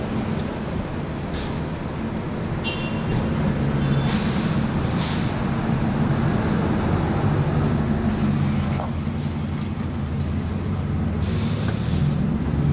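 Steady low rumble of a heavy vehicle's engine running in street traffic, with a few short hisses of air, the longest about a second.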